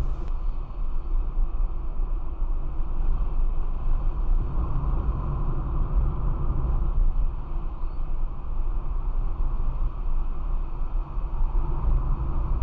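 Car driving at steady speed, heard from inside the cabin: an even low rumble of engine and tyres on the road, with no sudden events.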